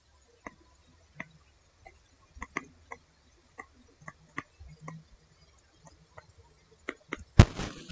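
Faint, irregular ticks and taps of a stylus writing on a tablet. Near the end a louder, noisier sound begins.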